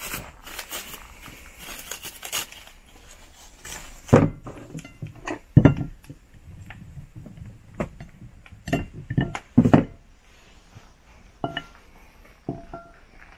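Tableware being handled and set down: a rustle at first, then a series of sharp knocks and clinks, the loudest about four to ten seconds in, with a few short ringing clinks near the end.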